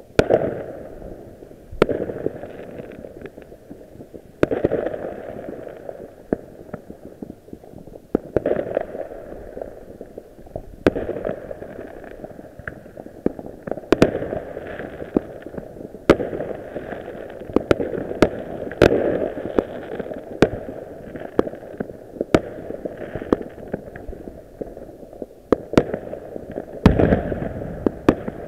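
Many fireworks going off at once: an irregular, unbroken run of bangs and pops with crackling between them, and a heavier, deeper boom near the end.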